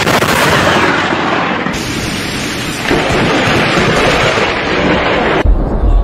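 Close lightning strike: a sudden loud thunderclap right at the start, then a dense rush of heavy rain and rumbling thunder. A second deep boom of thunder begins about five and a half seconds in.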